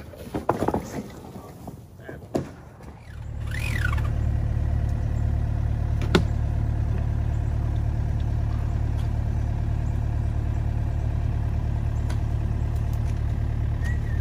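A few sharp knocks of timber being handled, then, about three seconds in, a nearby heavy-equipment engine starts to be heard, running steadily with a low, even rumble. One further knock comes about six seconds in.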